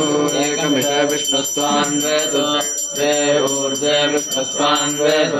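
Priests chanting Vedic wedding mantras in a sustained recitation, with a bell ringing steadily over the chant until near the end.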